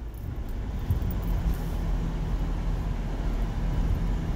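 A Subaru's engine and tyres heard from inside the cabin while it climbs a sandy dirt-road hill: a low rumble with a steady engine hum, getting louder about a second in.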